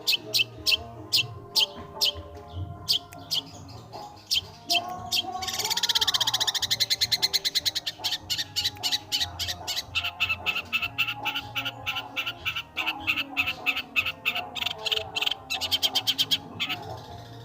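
Long-tailed shrike singing in long runs of rapid, sharp, chattering notes, several a second, with a denser harsh stretch about six seconds in; the song stops shortly before the end.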